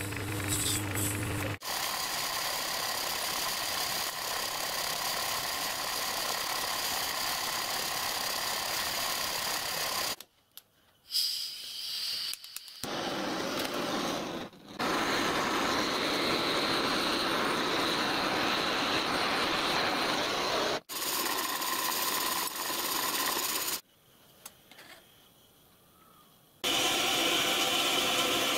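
Gas blowtorch burning with a steady hiss as it heats brass bushes to soft-solder a drive key into them, in several stretches broken by short pauses. At the very start, a few seconds of a metal lathe running as it turns a small brass part.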